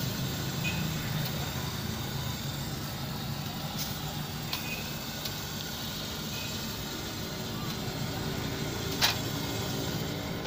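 Steady background hum of a roadside food stall at work, with a single sharp knock about nine seconds in and a few fainter clicks from the cook's work at the griddle.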